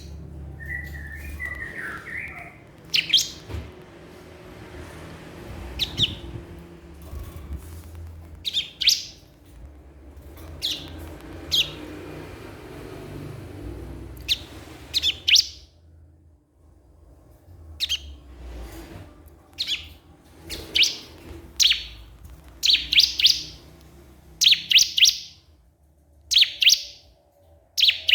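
Bar-winged prinia (ciblek kristal) calling with short, sharp, high chirps, scattered at first and then in quick runs near the end, over a low background rumble.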